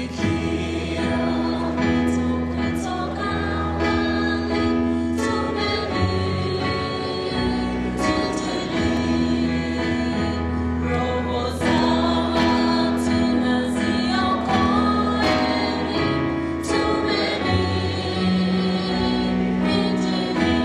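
Gospel music: a choir singing over instrumental backing with a steady beat.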